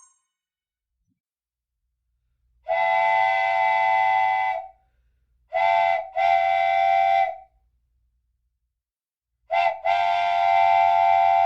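Train whistle blowing five times: one long blast, then a short and a long, then another short and a long. Each blast is a steady multi-note chord.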